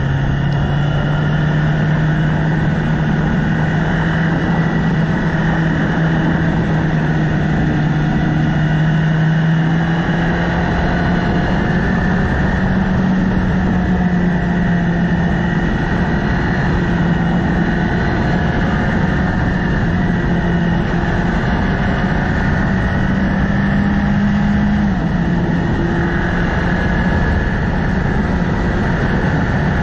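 Motorcycle engine running at road speed under a steady rush of wind and road noise. The engine note climbs slowly and drops abruptly about 25 seconds in.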